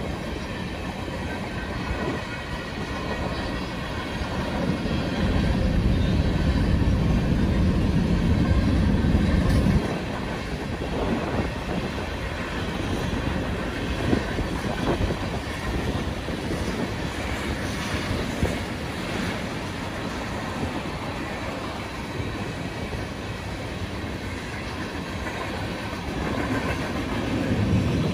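Freight train cars rolling past, their wheels clicking and clacking steadily over the rails. A heavier low rumble builds about five seconds in and drops away suddenly around ten seconds in.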